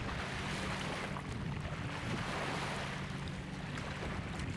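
Choppy lake water lapping and washing onto a gravel shore, with water sloshing around two people wading as they drag a seine net. A steady low hum runs underneath.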